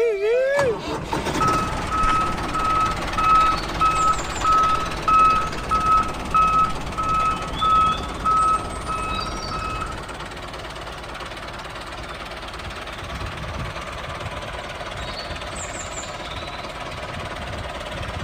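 A vehicle's reversing alarm beeping steadily, about one and a half beeps a second, over a continuous motor noise. The beeping stops about ten seconds in, and the motor noise carries on more quietly.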